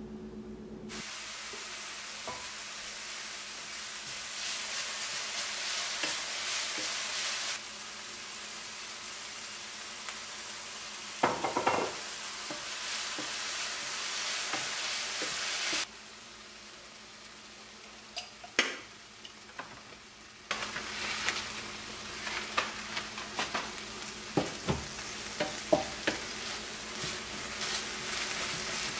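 Shredded vegetables and green and red pepper strips sizzling in a hot frying pan while a wooden spatula stirs and tosses them, with scattered knocks and scrapes of the spatula against the pan. The sizzle drops for a few seconds past the middle and comes back louder, busier with knocks.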